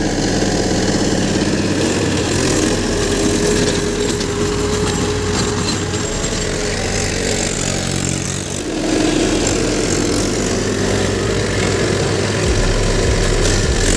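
Mahindra 475 DI SP Plus tractor's diesel engine running steadily under load while it drives a rotavator tilling through stubble and soil. There is a brief dip and change in the sound about nine seconds in.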